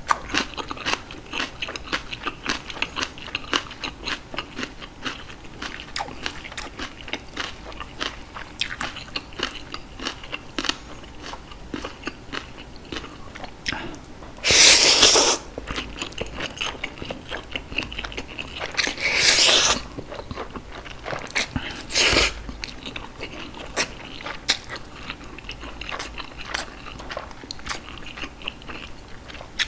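Close-miked chewing and crunching of green onion kimchi and Jjapaghetti noodles: dense small wet crunches throughout, with three louder noisy bursts, one about halfway through lasting about a second, one some five seconds later and a short one soon after.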